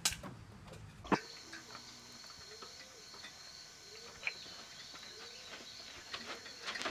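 Steady high chirring of insects, with faint soft calls about once a second and a few sharp clicks in the first second or so.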